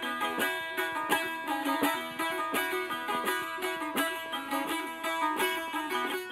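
Saz, the Azerbaijani long-necked lute, playing a quick plucked melody in an instrumental passage with no singing.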